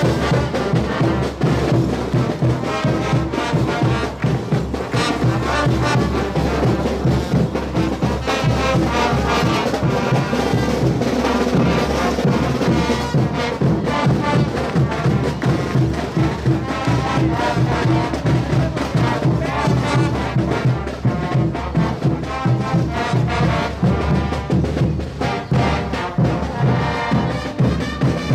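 Brass band playing caporal dance music: brass over bass drums and hand cymbals keeping a steady beat.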